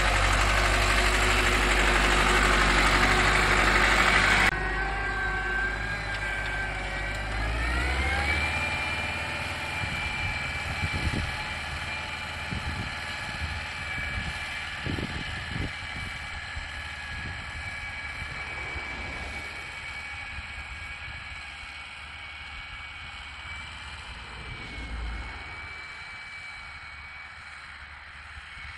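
SAME Laser 90 tractor's air-cooled diesel engine working under load while pulling a harrow. Loud and close at first, the sound drops abruptly about four seconds in. A few seconds later the engine revs up in a rising whine and settles to a steady pitch, growing fainter as the tractor draws away.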